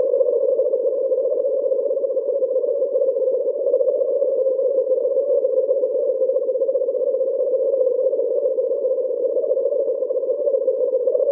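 Synthesized alien-insect ambience sound effect: a steady, fast-fluttering electronic drone, mostly low-mid in pitch, with a fainter higher band above it.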